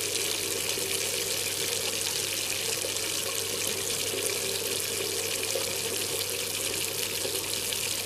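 Steady rush of spraying water as a fire is being put out, a constant hiss with no change through the stretch.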